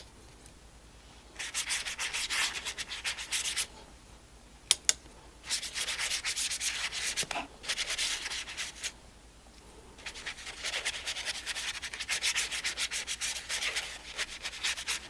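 Paintbrush scrubbing paint across textured watercolor paper in rapid back-and-forth strokes, in three bouts of a few seconds each. Two light clicks come about a third of the way in.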